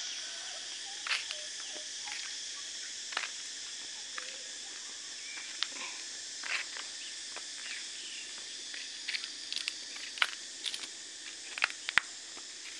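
Outdoor ambience: a steady high-pitched insect chorus, with scattered short clicks and taps throughout, the sharpest near the end.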